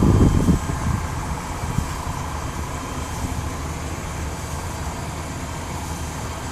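Steady low rumble of slow-moving traffic, louder and gusty for the first half second, with a faint distant emergency-vehicle siren wavering above it.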